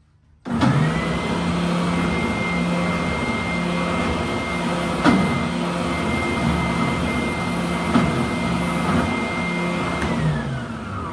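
WEN 6524 oscillating belt and spindle sander switched on, its motor whining up to speed and running steadily with a pulsing low hum, with two sharp knocks partway through. It is switched off near the end and the whine falls away as the motor spins down.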